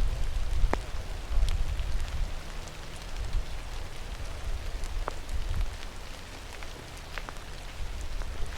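Light rain pattering, with scattered sharp drop ticks over a low, uneven rumble.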